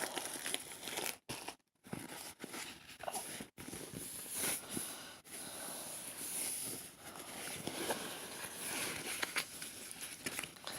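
Crinkling and rustling of plastic and paper as a rolled diamond painting canvas is handled and unrolled, with a few brief cutouts in the sound.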